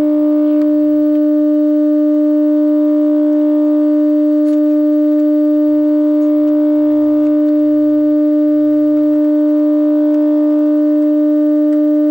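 A loud, steady electronic tone held at one pitch, with a few faint clicks.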